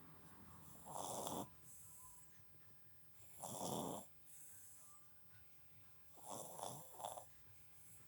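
English bulldog puppy, three months old, snoring in its sleep: three loud snores about every two and a half seconds, the last one doubled, with softer breaths between them.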